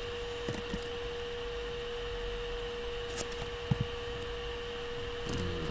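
A steady hum on one tone from the recording, with a few faint computer keyboard clicks about three and four seconds in as a command is typed.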